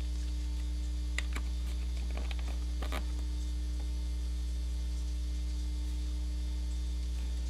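Steady electrical mains hum, with a few faint clicks and taps between about one and three seconds in as clear stamps on an acrylic block are handled and set on cardstock.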